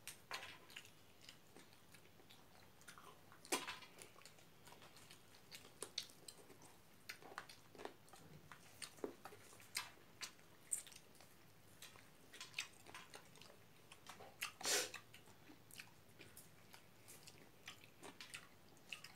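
Faint, scattered wet chewing and mouth clicks of people eating rice and curry with their hands, with two louder smacks, one a few seconds in and one about three-quarters of the way through.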